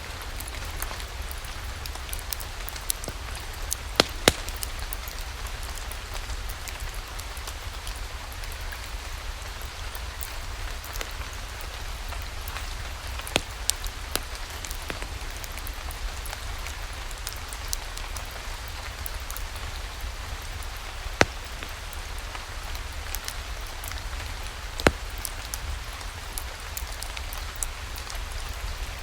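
Steady rain falling, with a few sharp, isolated pops of a crackling wood fire, the loudest a pair about four seconds in and single ones later on.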